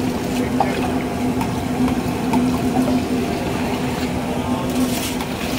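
A large pan of chole (chickpea curry) simmering while it is stirred by hand, giving a steady watery bubbling and sloshing over a constant low hum.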